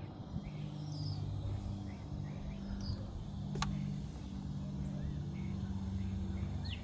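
A steady low mechanical hum that dips and returns, with a few short bird chirps above it and one sharp click about halfway through.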